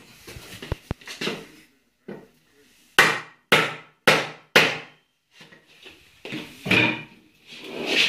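Steel box-section frame being knocked together onto plastic connectors: four sharp knocks about half a second apart, with lighter clattering and scraping of the steel tubes around them.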